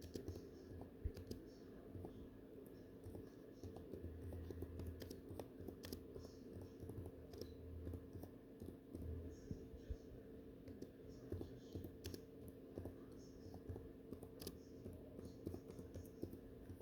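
Faint typing on a computer keyboard: irregular key clicks, some in quick runs, over a steady low hum.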